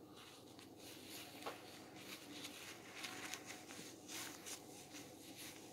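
Faint rustling of a cloth sleep mask and hoodie hood being adjusted on the head, with one soft tap about a second and a half in.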